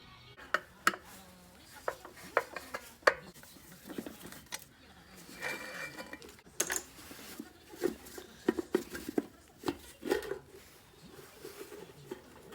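Irregular metallic clinks and knocks, like tools and small metal parts being handled and set down on a hard surface.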